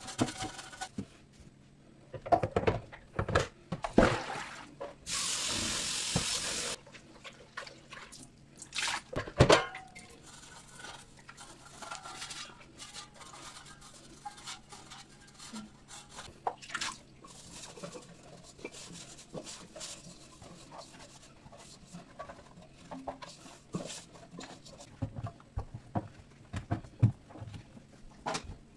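Washing an air fryer basket in a stainless steel sink: a brush scrubbing and the basket knocking against the sink, with the sharpest knocks a few seconds in and about ten seconds in. A tap runs briefly about five seconds in, then quieter handling, rinsing and wiping sounds follow.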